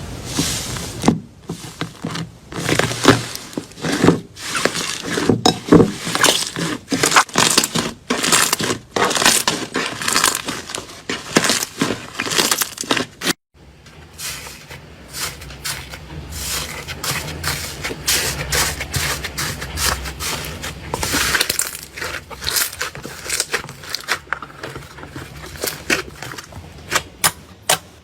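Slime being squished, stretched and poked by hand, making irregular wet crackling and popping. The sound breaks off briefly about halfway and comes back softer, with a low hum underneath.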